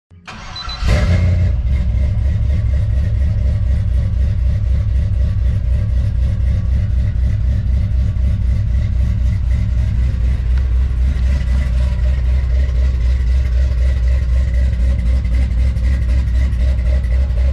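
An LS V8 engine in a Chevy pickup starting up, catching within about a second, then idling steadily and loudly.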